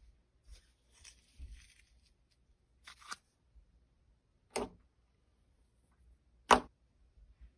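Clear glitter slime being stretched and pressed with fingertips. It gives faint sticky crackles at first, then three sharp pops, the loudest near the end.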